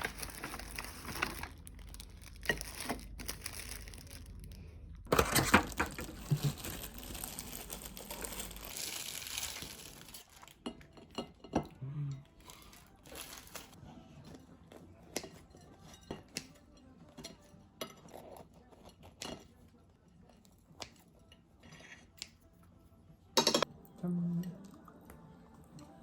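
Scattered clinks and knocks of tableware, mixed with crinkling and tearing of packaging, over a steady low hum that fades out about nine seconds in.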